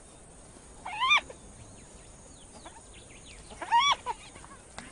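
Spotted hyena calling: two short, high-pitched whines that rise and then fall, one about a second in and one near four seconds, with fainter squeaks between.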